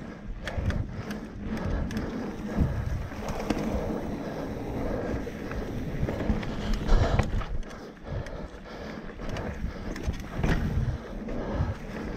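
Full-suspension 29-inch mountain bike rolling along a dirt trail: tyres crunching over dirt and roots, with frequent short knocks and rattles from the bike over bumps, and wind buffeting the microphone.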